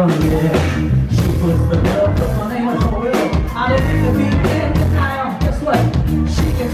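Live rock band playing: drum kit, electric guitar, bass guitar and keyboards, with a man singing lead over them.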